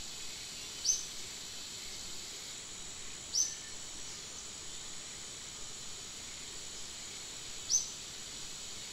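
Steady high-pitched insect drone, as of crickets or cicadas. Three short, high chirps stand out above it, a few seconds apart.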